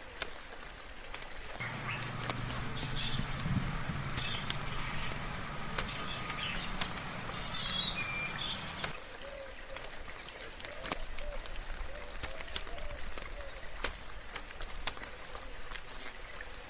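Birds chirping in short, scattered calls over steady rain, with sharp drip ticks throughout. A low steady drone runs under the first half and stops about nine seconds in.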